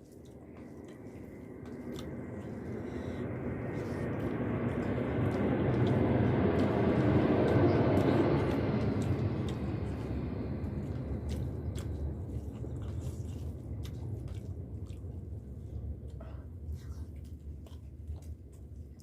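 Close-up chewing and mouth sounds of someone eating bamboo-shoot and potato curry with rice, with small wet clicks throughout. Under it, a broad rushing noise swells up, is loudest about seven seconds in, and slowly fades.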